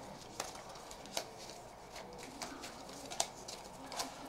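Trading cards being handled and sorted into piles by hand: light rustling card slides with a few scattered sharp clicks and taps as cards are laid down.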